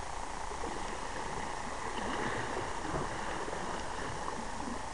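Steady wash of small waves lapping against a rocky shoreline, mixed with wind on the microphone.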